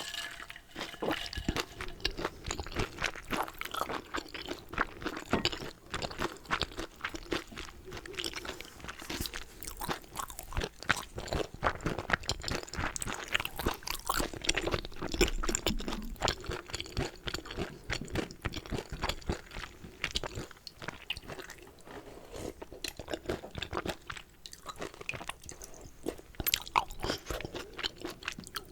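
Close-miked chewing of dumplings and tteokbokki: a dense run of small wet, crunchy mouth clicks as the food is bitten and chewed.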